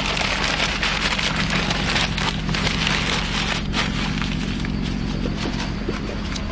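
Wood fire crackling, dense at first and thinning toward the end, over a steady low hum.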